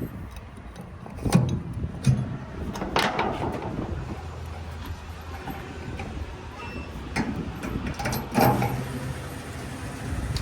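Mahindra backhoe loader's diesel engine running steadily, with several sharp metallic knocks and clanks from the machine at work.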